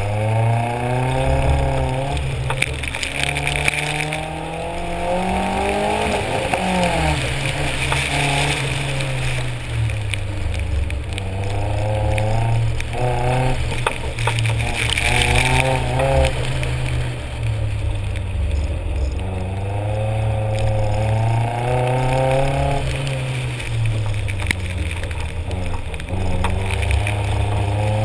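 Nissan 240SX's KA24 four-cylinder engine heard from inside the car during a hard autocross run: it pulls away strongly at the start, then rises and falls in pitch over and over as the driver accelerates, shifts and lifts for corners. Throughout there is a steady hiss from the tyres on wet pavement.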